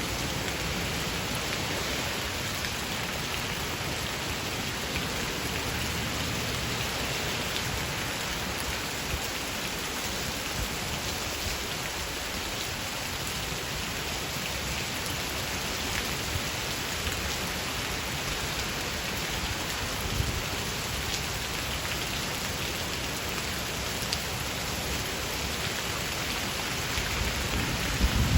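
Steady rain shower falling on hard surfaces, with scattered drips. A low rumble of thunder begins to build near the end.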